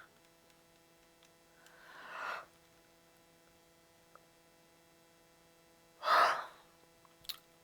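A person's breath sounds: a slow inhale that builds about two seconds in, then a sharper, louder breath out about six seconds in, over a steady low electrical hum.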